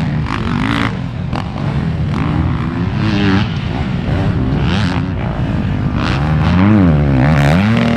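Motocross bike engines revving hard and backing off over and over, the pitch swooping up and down with the throttle, most strongly near the end.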